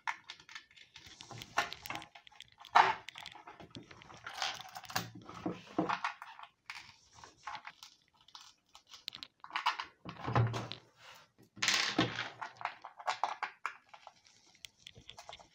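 Skateboard mounting bolts being pushed by hand through holes in a deck's grip tape: irregular scratchy rasps of fingers and bolt heads on the gritty tape, with light knocks of metal on the wooden deck.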